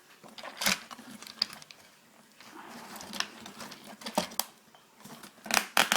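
Plastic parts of a dismantled house phone being handled: scattered clicks and knocks, with a quick run of clicks near the end.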